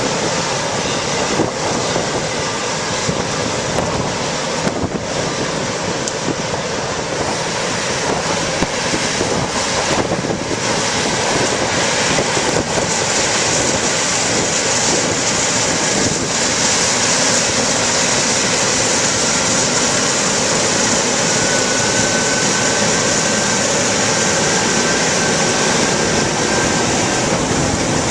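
John Deere round-baling cotton picker running as it harvests, a steady, dense machine noise that grows louder partway through as it comes closer. A faint high whine joins it for several seconds near the end.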